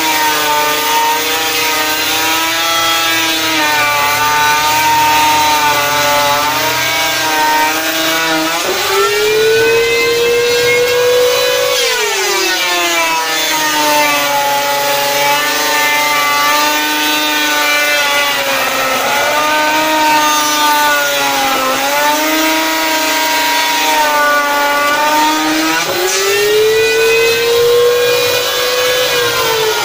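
Electric hand planer on a homemade sliding jig, its motor running continuously while it shaves a board. The whine sits lower in pitch while the blades are cutting and rises to free-running speed twice, about a third of the way in and again near the end, dropping back each time as the next cut begins.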